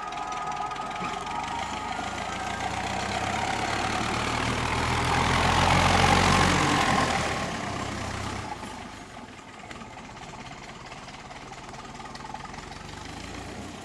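A heavy engine passes by, growing louder to a peak about six seconds in and then fading away quickly.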